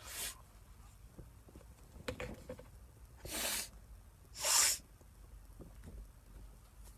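A short sniff, then, about three seconds in, two hard sniffs through the nose, the second the loudest, drawing cayenne pepper up off a cotton swab to bring on a sneeze.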